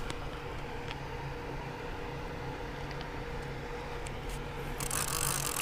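Steady low machine hum with a wash of noise, from the pumped-storage plant's machinery and water. A louder hiss comes in near the end.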